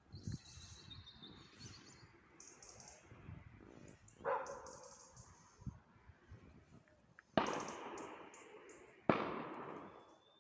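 Three sharp bangs, the later two louder, each dying away over a second or so, with faint high chirps between them.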